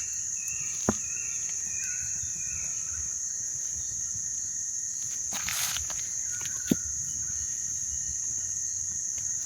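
A steady, high-pitched drone of insects such as crickets, with a few short bird calls in the first few seconds and again near the end, and a couple of sharp clicks.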